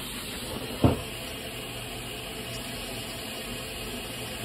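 Steady background hiss with a faint low hum, broken by one short sharp knock about a second in.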